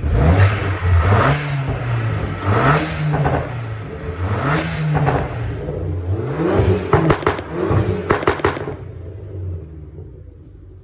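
Abarth 500's 1.4 T-Jet turbocharged four-cylinder engine being blipped about five times, the revs rising and falling, with a quick run of sharp clicks and crackles on the last blips, then dropping back to a quieter idle near the end. It is being revved to check the newly fitted silicone turbo intake pipe.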